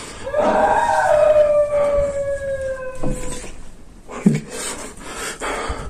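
A long wail that slides slowly down in pitch for nearly three seconds, then two heavy thuds about a second apart: footsteps.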